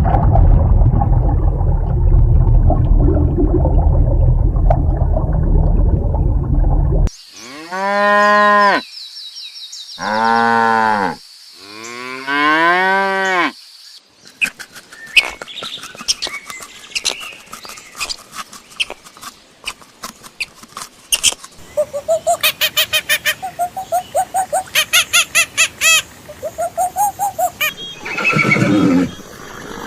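A run of different animal sounds, the clearest a cow mooing three times, each moo about a second and a half long, rising then falling in pitch. Before the moos comes about seven seconds of loud low rumbling noise; after them scattered clicks and a fast run of short repeated calls.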